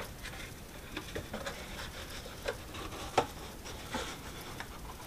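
Cardboard packaging handled by hand: irregular rustles and light knocks and taps, the sharpest a little past three seconds in.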